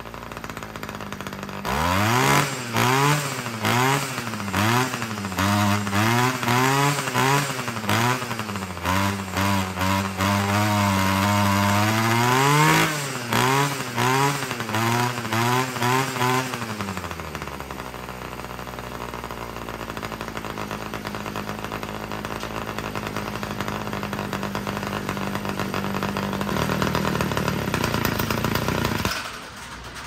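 Homelite two-stroke string trimmer engine idling, then revved up and down over and over with the throttle for about fifteen seconds before it drops back to a steady idle. The engine dies on its own near the end; to the mechanic it sounds like it is running out of gas, a lean low-speed mixture that he thinks needs richening.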